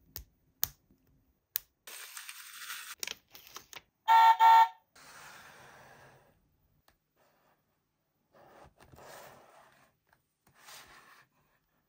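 Hands handling toys and packaging: a few sharp plastic clicks of LEGO pieces, then scraping and rustling. About four seconds in comes a short, loud horn-like beep, followed by cardboard toy boxes rubbing and sliding on a tabletop several times.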